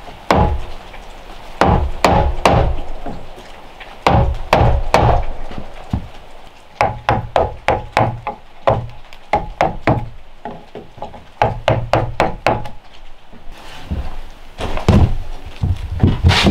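Wooden mallet striking a chisel that is cutting into a wooden door jamb: sharp wooden knocks in short runs, at times several a second, with brief pauses between runs.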